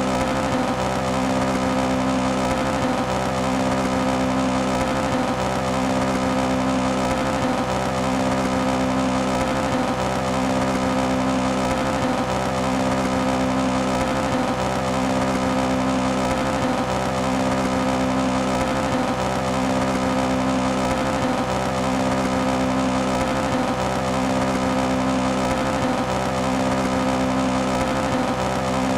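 Toyota AE86 engine running at steady high revs while stationary, misfiring. Its pitch holds constant, and its lower note breaks briefly about every two seconds.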